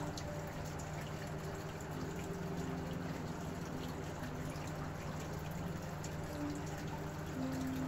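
Steady low hum under a constant hiss of background noise, with no distinct events.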